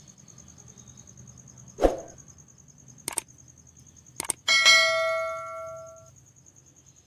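Subscribe-button overlay sound effect: a soft thump, then two mouse clicks, then a bell ding that rings out and fades over about a second and a half. Crickets chirp steadily underneath.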